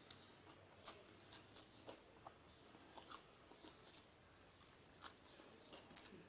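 Faint chewing and small mouth clicks of someone eating, in short irregular ticks every half second or so.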